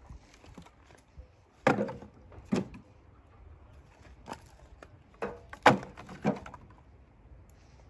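Split firewood logs knocking against one another as they are picked up and dropped onto a pile: about six irregular wooden knocks, the loudest a little past the middle.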